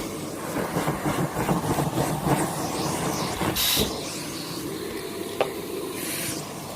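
Vacuum cleaner running while being worked over a surface, with a brief sharper rush of air a little past halfway and a single click near the end.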